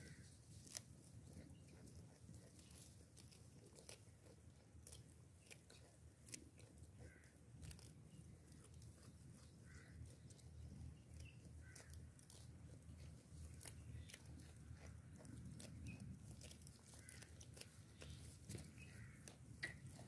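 Goats grazing close by: faint, irregular crunching and tearing as grass is bitten off and chewed, over a low rumble.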